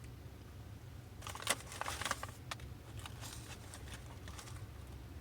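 Paper food packaging being handled, with a run of short crinkling and rustling crackles starting about a second in and lasting a couple of seconds, over a low steady hum.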